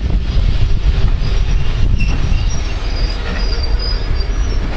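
BR green first-generation diesel multiple unit rolling slowly into a station platform with a heavy low rumble. Thin high squeals come in about a second and a half in and fade near the end as the train slows.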